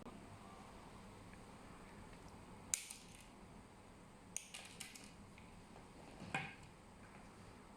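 Scissors snipping off the excess ends of copper network-cable wires at the back of a keystone jack: a few short sharp clicks, a quick run of three or four in the middle and a stronger one near the end.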